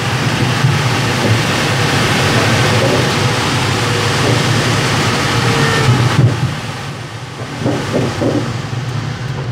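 Loud rush of air over a Pilatus B4 glider's canopy at high speed in the dive out of a spin, easing off about six seconds in as the glider pulls up.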